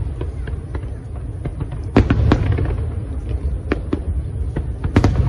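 Aerial fireworks going off: a quick series of sharp cracks and bangs over a continuous low rumble, with louder bangs about two seconds in and again near the end.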